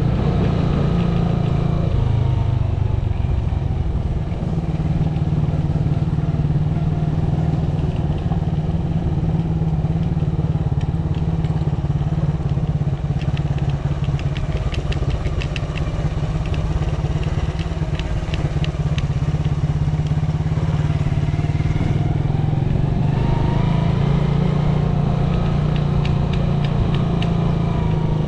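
Small motorcycle engine running steadily while riding over a dirt road, its note lifting slightly late on. Spells of fast clicking rattle come and go over the engine.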